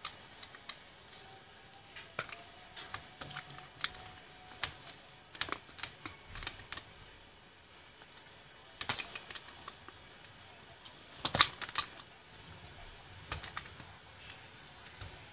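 Irregular light clicks and taps in scattered clusters as a cat bats at and bites a thin plastic toy wand poked under a sofa, the wand knocking against the sofa frame. The loudest run of taps comes about eleven seconds in.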